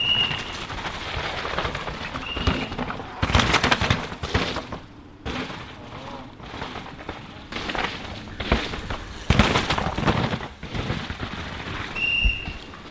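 Downhill mountain bikes ridden flat out over wet roots and rocks: bursts of rattling clatter from tyres, chains and suspension as each rider passes, loudest about three and a half seconds in and again a little past nine seconds.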